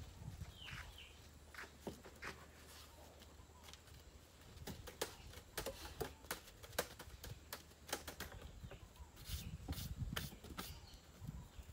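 Quiet outdoor ambience with a couple of short falling bird chirps near the start, and many scattered sharp clicks and knocks through the rest.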